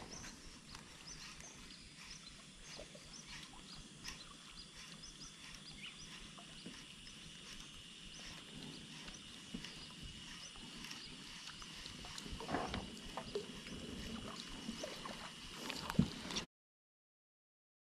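Faint ticks and taps of a baitcasting rod and reel being handled and water lapping against a plastic kayak hull, over a thin steady high tone. A few louder knocks come near the end, then the sound cuts out completely.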